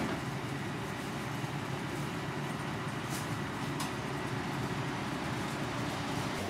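Steady low rumble and hiss of background noise in a street-food stall kitchen, with a couple of faint clicks about three seconds in.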